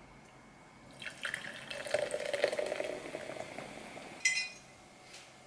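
Carbonated cola poured from a can into a glass jar, fizzing as it fills, from about a second in to about four seconds in. Then a short, high clink.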